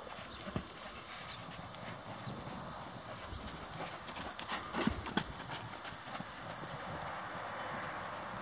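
Hoofbeats of a Morgan x Friesian mare trotting and cantering on a dirt surface, loudest about five seconds in as she passes close by.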